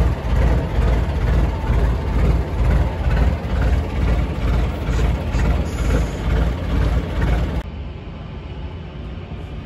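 Boat engine idling: a steady low, pulsing rumble that cuts off abruptly near the end, leaving a quieter background.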